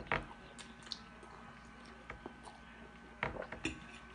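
Close-up mouth sounds of eating spaghetti: a short slurp of noodles at the start, then quiet chewing with a few wet smacks and clicks about three seconds in.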